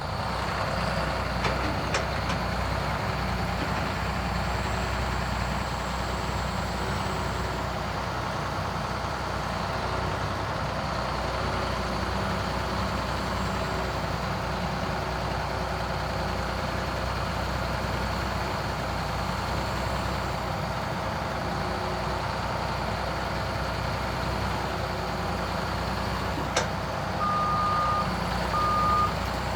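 Cat C9.3 ACERT diesel engine of a 2011 Cat 336EL hydraulic excavator running at a steady speed. Near the end a travel alarm starts beeping, about one beep a second.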